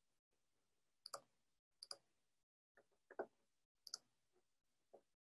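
Faint computer mouse and keyboard clicks, about five of them, spread out with near silence between.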